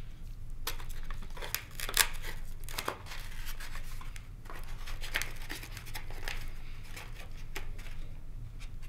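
Hands fitting a LiPo battery and its wiring into the foam nose bay of a small RC jet: irregular clicks, taps and scratchy rustling of plastic, wires and foam, the sharpest click about two seconds in.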